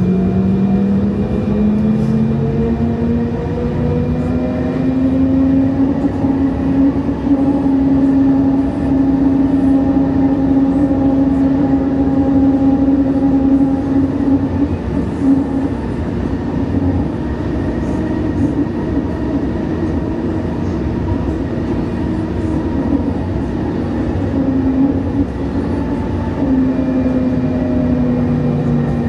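Siemens S70 light-rail train running between stations, heard from on board: rail and running-gear rumble under an electric motor whine. The whine rises in pitch over the first few seconds, holds steady at speed, then drops near the end as the train eases off.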